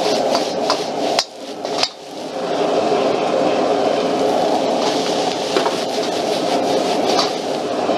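Powerful gas wok burner giving a loud, steady rush of flame while a metal spatula clanks and scrapes against the wok as fried rice is tossed. There are two sharp clanks a little after one second and just before two seconds, with a brief drop in the rush between them, and a few more clanks near the end.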